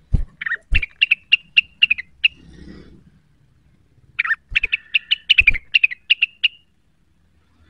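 Rengganis bird calling in two bursts of rapid, sharp repeated chirps, about four or five notes a second, with a short pause between the bursts. A few low thumps sound among the calls.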